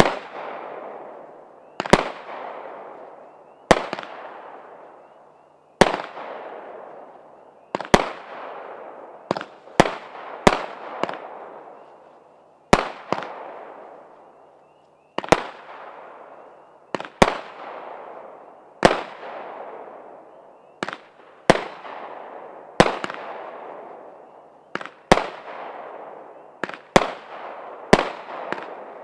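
Firework cake, the 'Rock and Roll' cake by Fantasy Fireworks, firing shot after shot. The sharp bangs come about every two seconds, a few in quick pairs, and each trails off in a hissing, echoing tail that fades over a second or two.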